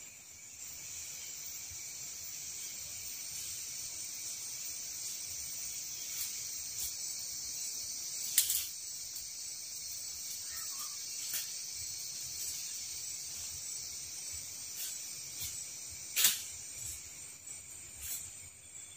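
Steady high-pitched chorus of rainforest insects, with a few footsteps in dry leaf litter and two sharp snaps, one near the middle and one near the end, as a person walks through the undergrowth.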